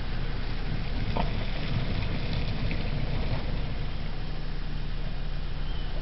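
A car engine running steadily at low revs, a low even hum, as the car creeps down a steep dirt track.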